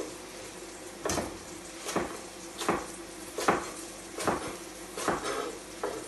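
A chef's knife chopping carrots into rough dice on a wooden chopping board: about seven separate knocks a little under a second apart. Under them runs the soft steady sizzle of vegetables sweating gently in a pot.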